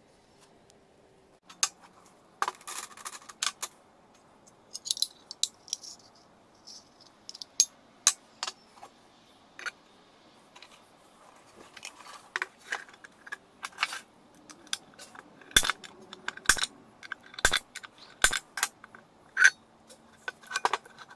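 Metal parts handled on a wooden workbench: scattered clinks, taps and rattles, with four heavier knocks about three-quarters of the way through.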